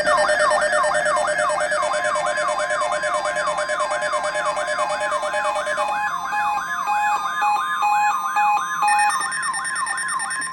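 Electronic alert tones: a falling siren-like sweep repeats about three times a second over steady high tones. About six seconds in, a second pattern of short, evenly spaced beeps joins, and the steady tones shift about nine seconds in.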